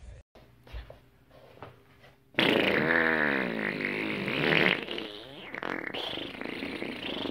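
A long fart sound that wavers up and down in pitch, starting suddenly about two seconds in and going on for several seconds.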